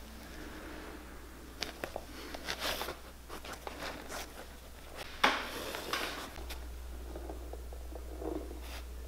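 Thread being pulled through the leather and sheepskin lining of a boot collar during hand stitching: a series of short scratchy pulls, the loudest about five seconds in.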